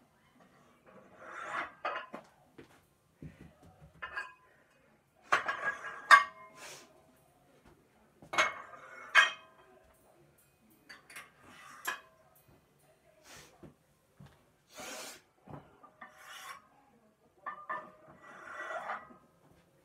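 Weight plate scraping and clanking on a barbell's metal sleeve as it is handled, in intermittent bursts, with the sharpest clank about six seconds in.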